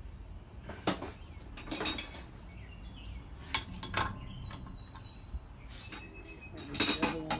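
Metal tools clinking and knocking several times, with a louder cluster near the end: a starter-clutch wrench being handled and fitted onto the starter clutch on the flywheel of a Briggs & Stratton engine.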